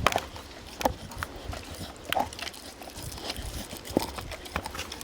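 American Staffordshire terrier chewing a big raw cow bone close up: irregular sharp cracks and crunches of teeth on bone, about one or two a second, between softer gnawing.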